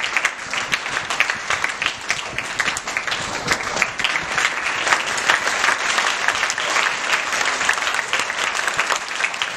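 A room full of people applauding steadily, many hands clapping at once.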